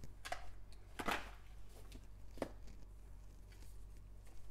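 Foil trading-card packs rustling and crinkling as a gloved hand handles them: a few short rustles, the loudest about a second in, then fainter handling.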